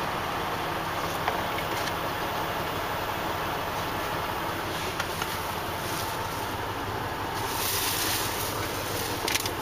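Steady low engine hum with an even hiss, typical of an idling diesel truck heard from the cab; a brighter hiss swells briefly near the end.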